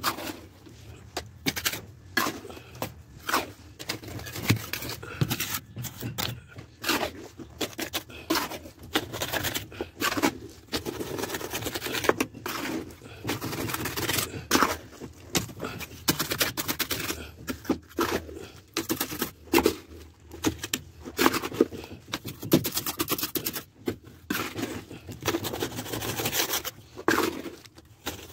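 Dense, irregular scraping and clicking, like hard objects rubbing and tapping against a rough surface, with no steady rhythm.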